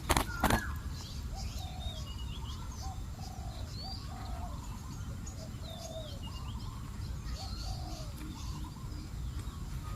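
Spotted doves cooing: a run of short, repeated low coos, with small birds chirping higher above them. A couple of sharp clicks in the first half second.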